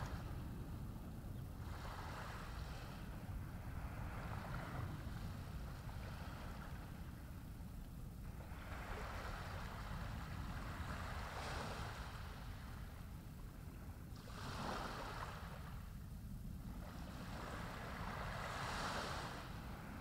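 Small sea waves washing up onto a sand-and-pebble beach, each wash a swell of hiss every few seconds, over a steady low rumble.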